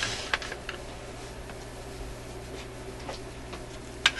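A few light clicks and taps of a metal tool against the radio chassis as it is worked into position on a screw, with one sharper click near the end, over a steady low hum.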